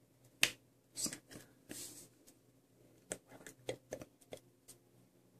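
Fingernails tapping on a glass perfume bottle that is filled with liquid: about eight light, scattered taps and clicks with a brief rub near two seconds in. The full bottle gives dull taps rather than a hollow glass ring.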